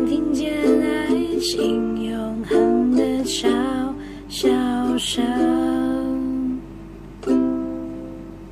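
Ukulele strummed chords in a short, unhurried outro, ending on a final chord about seven seconds in that rings out and fades.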